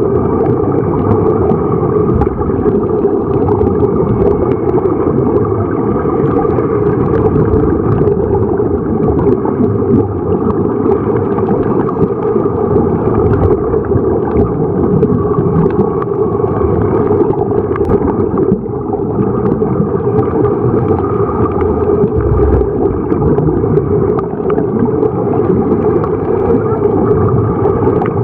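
Underwater sound beside sea-walk helmets fed with air from the surface: a loud, steady low rumble with bubbling and gurgling as air streams out of the helmets, dipping briefly about two thirds of the way through.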